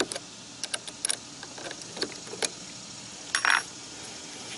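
Hand wrench on car battery terminal bolts: scattered small metallic clicks and clinks, with a short scrape about three and a half seconds in.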